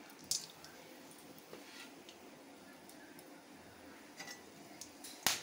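A few scattered light ticks and clicks from an aluminium kadai where whole spices are tempering in hot mustard oil, over a faint steady hiss, with one sharp click near the end.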